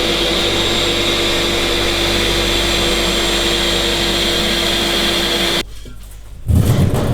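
Corded power tool with a cutting disc running steadily with a constant whine, then winding down about five and a half seconds in. A louder low sound starts near the end.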